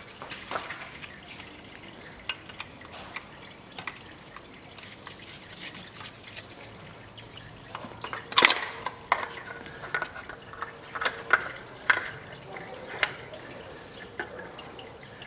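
Transmission fluid dripping from the opened CVT heat-exchanger filter housing, with scattered light clicks and scrapes as the oil filter is pulled out of its housing by hand. The clicks are busier in the second half.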